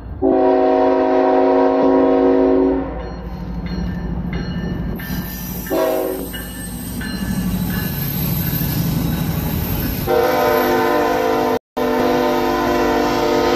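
Norfolk Southern diesel locomotive's air horn blowing as the train passes: a long blast, a short blast about six seconds in, and another long blast from about ten seconds in, over the locomotive's engine rumble and the wheel noise of the passing cars.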